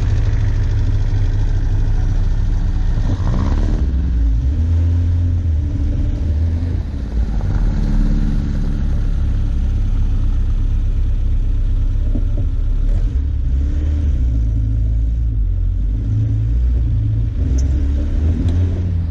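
Off-road 4x4's engine working under load while driving through deep snow, heard close from the bonnet, over a heavy low rumble; the engine note rises and falls several times as the throttle changes.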